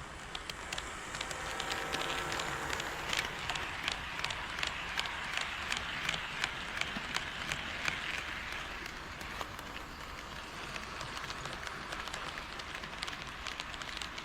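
HO-scale model train, a KATO D51 steam locomotive model, running past with quick irregular clicks of its wheels over the track joints. The clicks grow louder a couple of seconds in, are loudest for several seconds, then fade as the train moves off.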